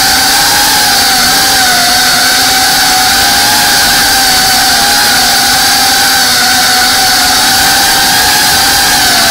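FPV quadcopter's brushless motors and propellers whining steadily in flight, heard from the drone itself, over a hiss of rushing air. The pitch wavers slightly with the throttle.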